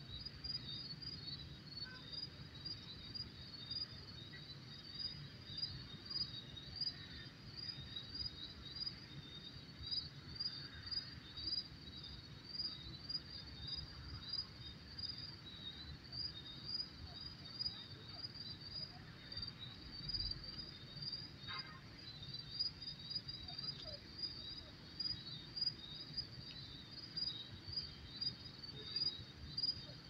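Crickets chirping in an even, steady rhythm of short high chirps, a few a second, over a low steady rumble.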